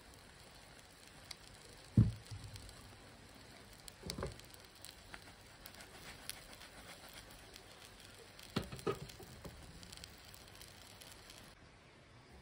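Omelet sizzling and crackling faintly in a pan on a gas burner, with a few dull knocks of the pan and its glass lid, the loudest about two seconds in.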